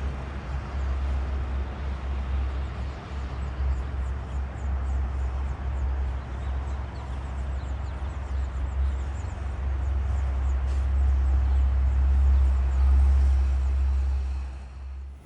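Heavy diesel road-paving machinery running: a steady low engine rumble that swells near the end, then drops away.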